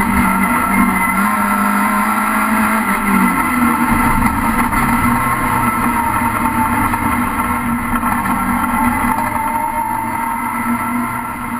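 Rallycross car's engine running hard, heard from inside the cockpit; its pitch dips and shifts over the first few seconds, then holds fairly steady before fading out near the end.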